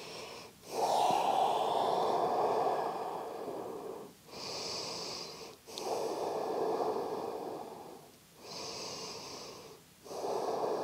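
A woman breathing slowly and deeply during a held yoga stretch, each breath clearly audible. The breaths in and out alternate with short pauses between them, about two full breath cycles.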